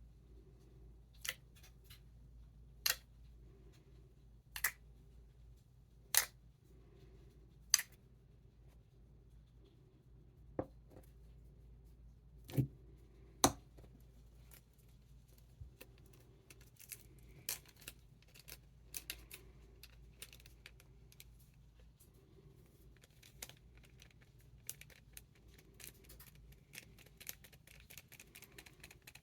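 Thick silken-tofu-texture slime worked by hand, popping air bubbles with loud, crisp clicks. Single sharp pops come about every second and a half at first, then a denser run of smaller clicks in the second half.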